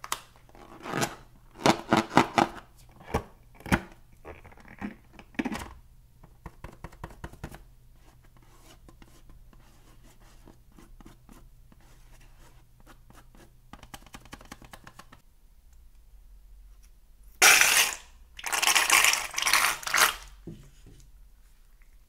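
Slime-filled latex balloons squeaking and rubbing under hands, in a run of short squeaks over the first few seconds. Near the end comes the loudest sound, a few seconds of ripping noise as a balloon's latex is opened and torn off the slime.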